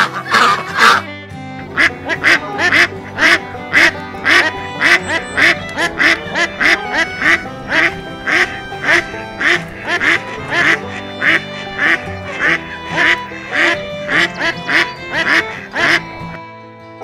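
Background music with a steady beat, about three beats a second, with ducks quacking over it; the music stops near the end.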